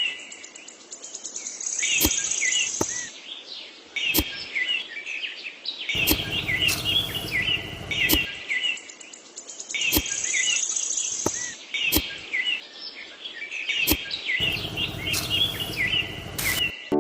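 Birds chirping and calling, the same pattern of chirps coming round about every four seconds, with a few sharp knocks and two stretches of louder noise beneath.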